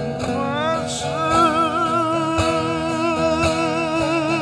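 Bağlama (long-necked Turkish saz) strummed with its drone strings ringing under one long sung note from a man's voice, wavering in vibrato, that glides up about a second in and is then held.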